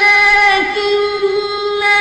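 A man's voice in melodic Qur'an recitation, holding one long high note. The pitch dips briefly about halfway in.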